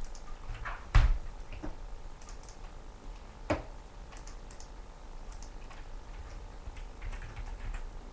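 Light, scattered clicking of typing on a keyboard, with two sharp thumps, the louder about a second in and another about three and a half seconds in.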